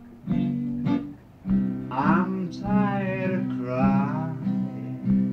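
Acoustic guitar strummed in a steady rhythm, opening a song on an early-1980s home recording made with a portable tape recorder. A wavering melody line rides over the chords from about two seconds in.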